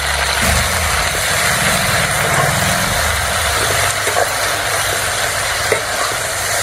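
Gongura leaves sizzling in hot oil as they are stirred in a wide aluminium pan, with a couple of light spatula clinks against the pan in the second half. A steady low rumble runs underneath, strongest in the first few seconds.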